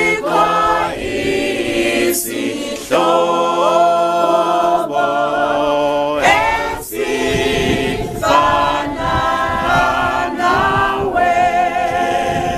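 A small group of women's voices with a child singing a hymn unaccompanied in harmony, phrase by phrase with short breaks between the lines.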